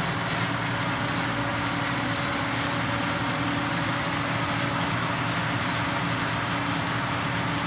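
Diesel engine of John Deere harvest machinery running steadily. It makes a constant drone with a few steady hum tones.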